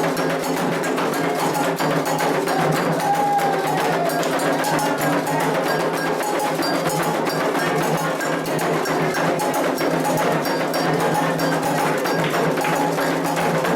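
Candomblé ritual drumming for Iansã: atabaque hand drums playing a fast, dense rhythm with a metal agogô bell striking over it.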